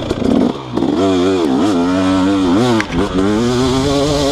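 2018 KTM 250SX's 250cc single-cylinder two-stroke engine, exhausting through an FMF Powercore 2 silencer, revving under riding load. The throttle is chopped and reopened several times in the first three seconds, the pitch falling and rising each time, then it holds a steadier, higher rev.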